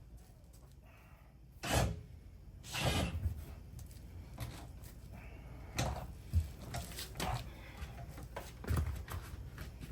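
Irregular knocks, clunks and scraping from a scissor jack being worked as a makeshift bead breaker against a UTV tire on a beadlock wheel. The loudest knocks come about two and three seconds in, and smaller ones follow at uneven intervals.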